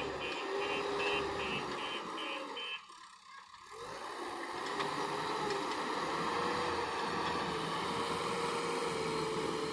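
Backhoe loader's reversing alarm beeping about two or three times a second over its running diesel engine, stopping a little under three seconds in. After a brief dip, the engine runs on steadily.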